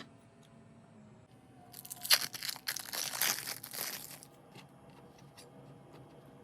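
Crinkling and tearing of plastic food packaging for about two and a half seconds, followed by a few light clicks.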